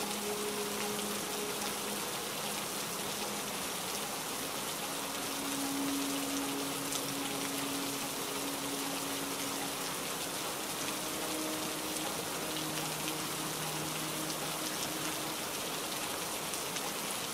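Steady heavy rain falling, an even hiss of drops with a few sharper drop clicks. Slow background music of long, held low notes sits underneath.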